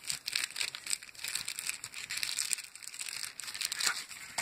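Thin clear plastic sleeve around paper instruction manuals crinkling and crackling as hands pull it open, a dense irregular run of crackles.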